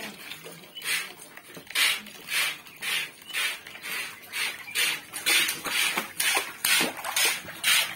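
Water splashing in a small inflatable paddling pool as children slap and kick at it, in repeated short splashes that come faster in the second half, over the steady hiss of a garden hose filling the pool.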